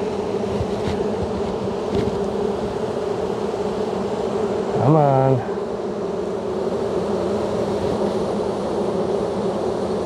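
Honeybees buzzing steadily around an open hive, the hum of many bees at once. About halfway through, a louder pitched buzz rises briefly and then holds for half a second, and a few faint knocks come in the first two seconds.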